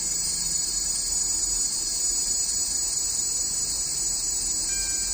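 1000 W brushless (BLDC) electric scooter hub motor spinning unloaded in reverse, giving a steady high-pitched electric whine.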